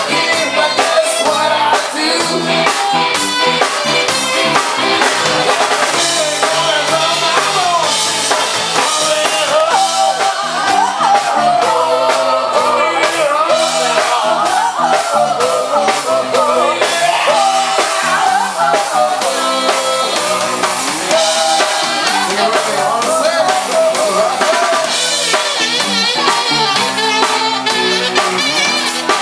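Live rock band playing: a drum kit keeping a steady beat under electric bass, with a woman singing lead.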